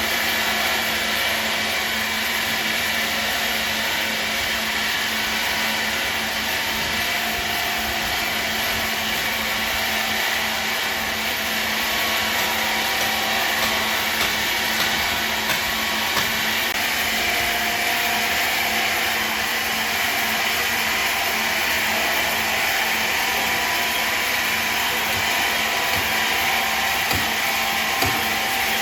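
A woodworking machine running at constant speed: a steady, noisy whine over a low hum.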